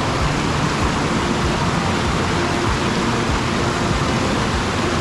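Creek water rushing, a steady even noise.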